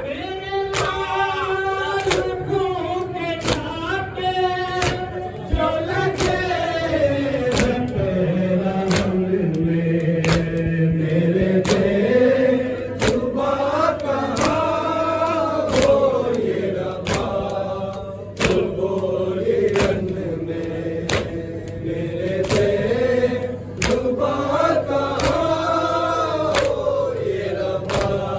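Men's voices chanting a noha, a Shia lament, together in a slow wavering melody. Over it runs a steady beat of open-palm chest strikes (matam), about three strikes every two seconds.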